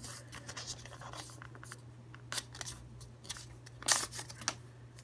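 Folded white paper wrapper being handled and pulled open by hand: irregular short crackles and rustles of paper, with a few sharper ones about two and a half, four and four and a half seconds in. A steady low hum runs underneath.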